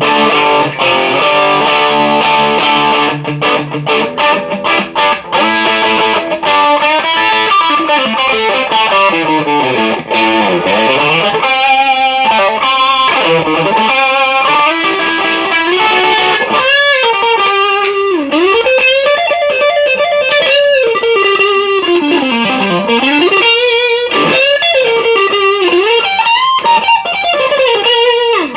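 Knaggs Choptank Tier 2 solid-body electric guitar played lead through an overdriven amp: fast runs of notes that sweep up and down in pitch, broken by held notes with vibrato.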